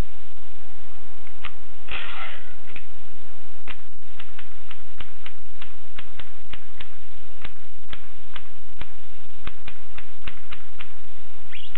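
Groma Gromina manual typewriter being typed on: irregular sharp keystroke clacks, roughly three a second, with a brief scraping sound about two seconds in.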